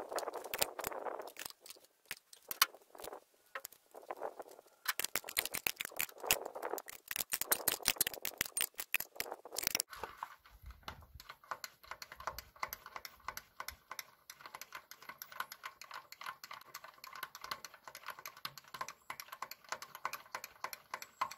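Small metallic clicks and taps of a spanner working on a tractor's diesel injection pump. After about ten seconds, a steady run of rapid small clicks as the hand primer on the new fuel feed pump is worked, drawing fuel up to the injection pump.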